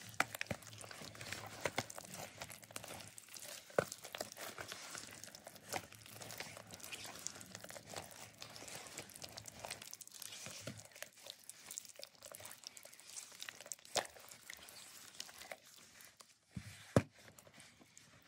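Wet gym chalk paste being mixed and squeezed by gloved hands in a bowl: dense, irregular crackling with a few sharper clicks.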